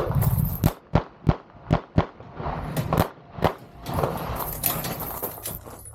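A string of pistol shots fired at uneven intervals, about half a second apart, as a competitor engages targets on a stage.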